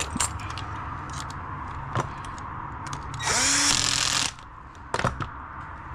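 Custom-built cordless hair clipper with a brushless motor running steadily, with a few sharp clicks and a louder, harsher burst lasting about a second near the middle.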